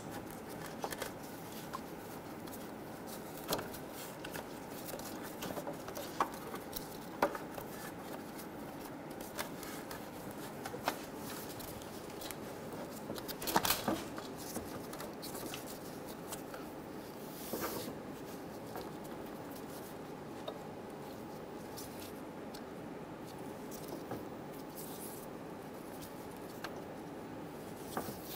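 Gloved hands working a ribbed rubber serpentine belt around the engine pulleys: faint rubbing with scattered light clicks and taps, the loudest cluster about halfway through, over a steady low background noise.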